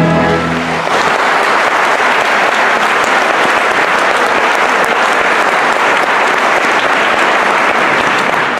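An orchestra's final held chord breaks off just under a second in, and an opera audience applauds, a dense, steady clapping.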